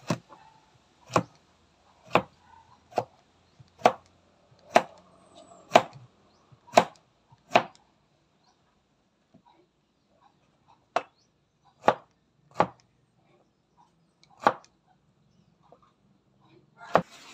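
A kitchen knife slicing through a peeled bottle gourd (upo) and knocking on a plastic cutting board, one sharp chop about every second. The chops stop for a few seconds midway and then go on more unevenly.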